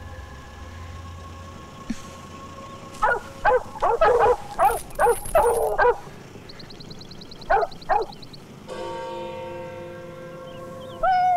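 Large dogs barking in a kennel: a quick run of about eight barks, then two more barks a couple of seconds later. Background music underneath.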